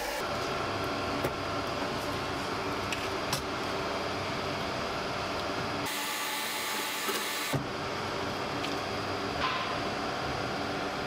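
Electric drive of a rotating ceramic-shell slurry mixer running with a steady hum, with a few small knocks as a wax pattern is worked in the slurry. From about six seconds in, it turns briefly hissier and thinner.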